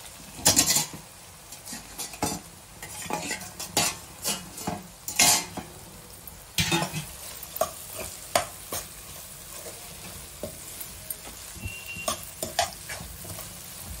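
A steel spoon stirring soya chunks with onion and tomato in a non-stick wok, irregular scrapes and clinks against the pan over a low sizzle of frying.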